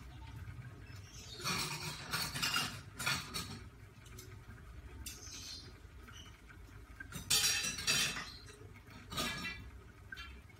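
Dishes and cutlery clinking and clattering in several short bursts, loudest about seven seconds in, over a low steady hum.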